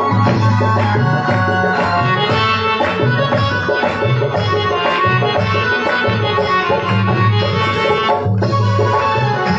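Instrumental interlude of an Indian devotional folk song: a sustained electronic keyboard melody over a steady hand-drum rhythm.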